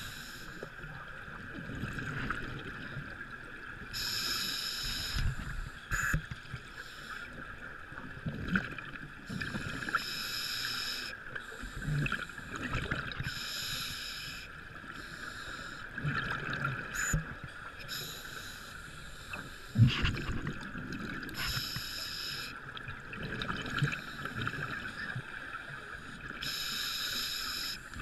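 Scuba diver breathing through a regulator underwater: a burst of exhaled bubbles about a second long every four to six seconds, over a steady hiss and scattered dull knocks, the loudest knock about two thirds of the way through.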